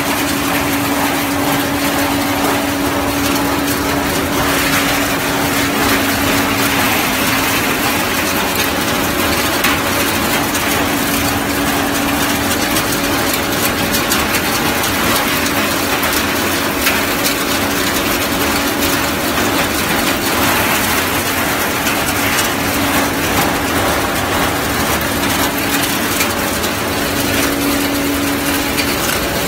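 HTL-125 soybean threshing machine running steadily while soybean plants are fed in and threshed: a constant hum over a rough, rushing noise from the drum and blower fan.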